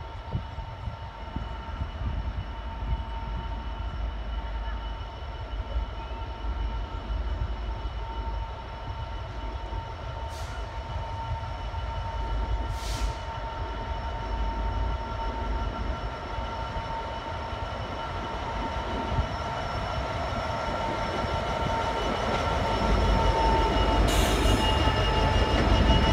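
Freightliner Class 66 diesel locomotive with its two-stroke V12 engine approaching slowly with a train of ballast hopper wagons, getting steadily louder as it draws alongside. A steady high whine runs over the engine's rumble and rises slightly in pitch near the end, with three short hisses.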